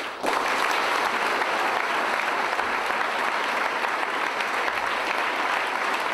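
Audience of students applauding, a loud ovation that breaks out all at once and holds steady.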